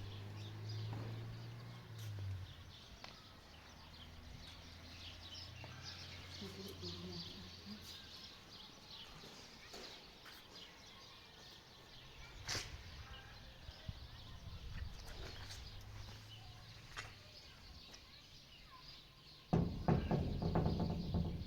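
Small birds chirping on and off, with scattered light knocks. In the last two seconds a louder, low voice-like sound comes in.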